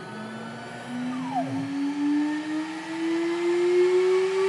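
Air-cooled 2.2 kW high-speed spindle motor of a CNC lock-routing machine spinning up, its whine rising steadily in pitch and growing louder as it ramps toward its full 24,000 rpm. A brief falling sweep about a second in.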